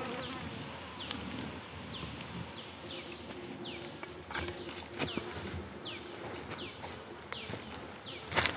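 Repeated short, high chirps from an animal, each sliding down in pitch, about two a second. A few sharp knocks cut in, one about five seconds in and the loudest near the end.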